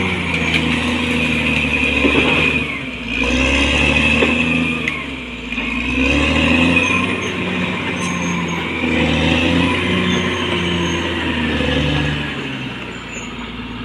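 Caterpillar D6R XL bulldozer's diesel engine working, its pitch rising and falling repeatedly under changing load. Near the end it settles to a lower, steadier idle.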